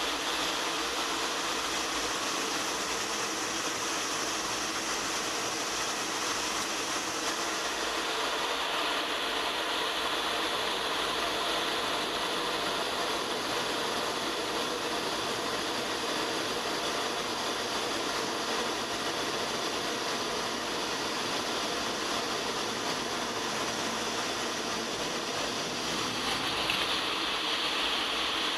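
Steady rush of airflow and jet engine noise from an A-10 Thunderbolt II in flight, picked up by a camera mounted outside the cockpit. The high hiss changes tone about 8 seconds in and again near the end.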